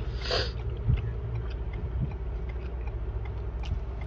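Steady low hum inside a car cabin, with a brief rustle and a few faint clicks.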